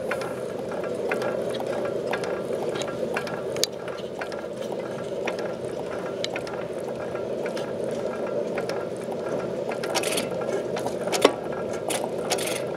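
Kirkness stationary oil engine running, a steady mechanical clatter with scattered sharp clicks from its moving gear and linkage, and one louder click near the end.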